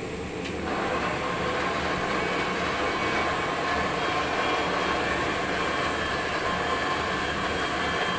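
Steady hiss and rumble of a large aluminium pot of mutton cooking over a burner, getting a little louder under a second in.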